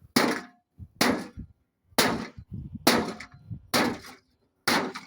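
Six heavy blows against a microwave oven's metal casing, about one a second, each a sharp bang with a short metallic ring.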